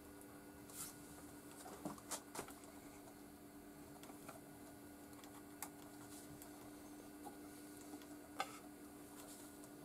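Light clicks and knocks from a 7-inch vinyl single being set down on a turntable platter and a plastic spindle adapter pressed onto it: a small cluster about two seconds in, and single ones later. Under them is a faint steady hum.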